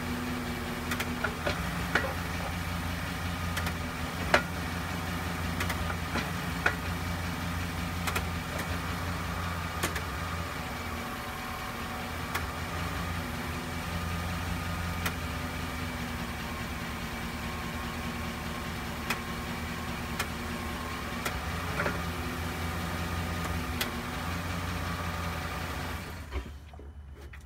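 2011 Chevrolet Silverado engine running steadily at idle, with a thin steady whine above the hum and sharp clicks every second or two as the transmission is shifted through park, reverse, neutral, drive and manual. The whine is the slow-speed squeal that the owner is chasing, which he suspects comes from the rear differential after a new rear universal joint did not cure it. The sound drops away about a second before the end.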